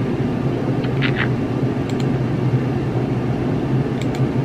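Steady low hum and hiss of room noise, with a brief high squeak about a second in and a few faint clicks.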